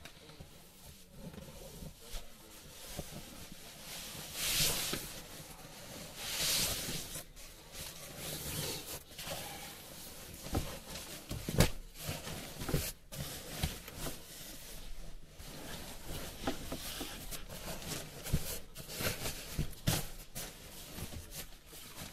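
Rustling and rubbing of objects being handled, with several sharp clicks and knocks scattered through it.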